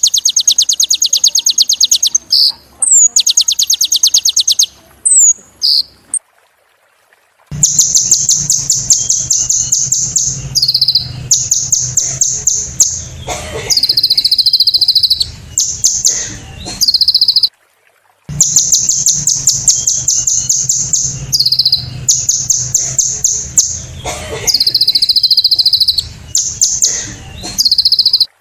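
Kolibri ninja sunbird singing: long, very fast high-pitched trills and rapid note series, broken by two short pauses, with a faint low hum underneath from about seven seconds in.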